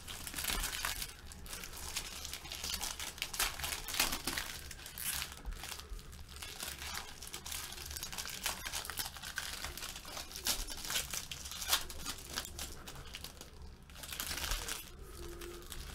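Trading-card pack wrappers being torn open and crinkled by hand: a dense, continuous run of crackles and rustles.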